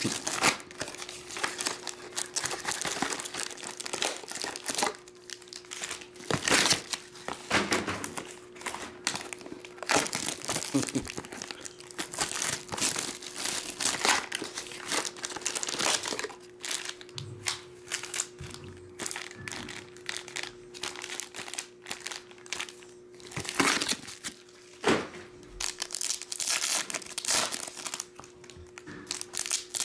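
Plastic wrapping on a trading card box and foil card packs crinkling and rustling in irregular bursts as they are torn open, handled and stacked.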